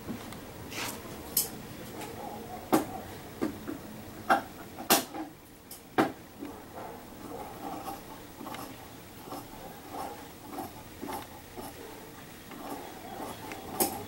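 Scattered small clicks and light taps of fingers handling the metal thread guides and faceplate of an antique Singer sewing machine while threading it, most of them in the first half.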